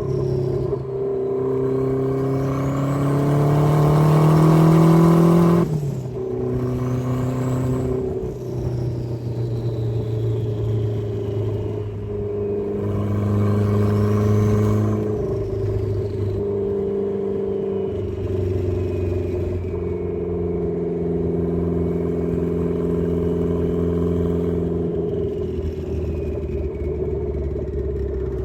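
Turbocharged Mazda Miata's inline four-cylinder engine pulling through the gears: revs climb for a few seconds, then drop sharply at each gear change, several times over. A thin high whistle rises with the revs and falls away after each lift, typical of the turbo spooling.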